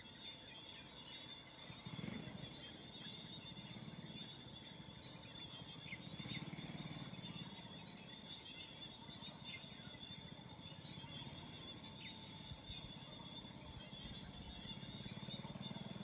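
Rural dawn ambience: a steady high-pitched insect drone with a few short bird chirps, under low, buzzy animal calls that swell and fade for a few seconds at a time.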